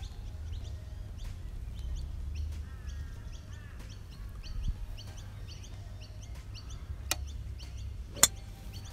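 Birds chirping and calling over a low rumble of wind on the microphone. Near the end comes one sharp crack of a golf club striking the ball.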